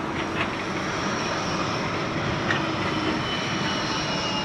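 Bombardier Flexity 2 tram coming past close by: a steady running noise with a thin high electric whine and a couple of brief clicks from the wheels on the rails.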